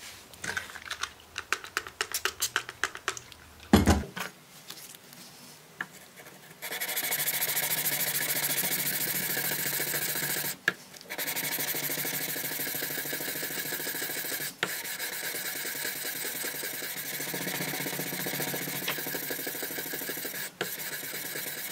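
600-grit wet-and-dry sandpaper on a hand block rubbed back and forth along a hardened steel knife blade: hand-polishing after heat treatment. A few light scratches and a knock come first, then about a quarter of the way in a steady scraping begins and runs on with a few brief breaks.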